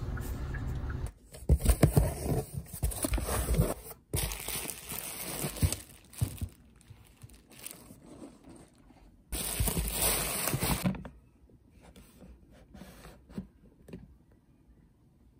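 A low car-cabin rumble for about a second, then packaging being handled while a grocery delivery box is unpacked: plastic wrap, bubble wrap and food pouches crinkling and rustling, in loud bursts at about 1.5 to 6 seconds and again around ten seconds in, then quieter rustling.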